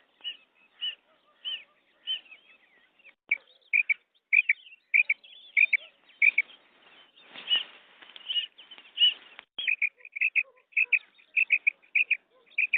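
Female common quail calling: a long series of short, sharp call notes, about one to two a second, coming faster in quick pairs near the end. A brief rustling noise sounds midway.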